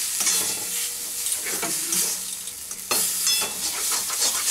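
Spatula scraping and stirring a thick bean-paste mash around a metal wok on a gas flame, with a light frying sizzle as the water cooks off. Repeated short scrapes, with a sharper scrape about three seconds in.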